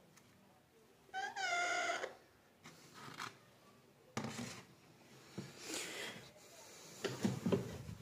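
Rose-ringed (Indian ringneck) parakeet calling: one drawn-out, wavering, meow-like call about a second in, followed by several shorter, rougher sounds.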